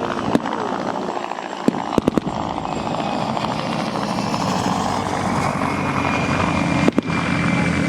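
A steady engine drone with a few sharp gunshot cracks: one just after the start, a quick cluster of three about two seconds in, and two more near the end.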